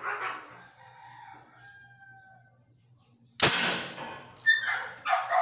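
A homemade PVC alcohol-combustion toy gun fires once, about three and a half seconds in, with a single sudden loud crack, the loudest sound here. Before the shot a rooster crows, and a couple of short animal calls follow near the end.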